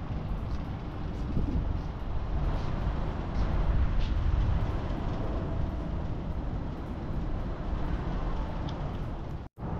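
Low, uneven outdoor rumble, heaviest in the bass, with a brief dropout to silence near the end.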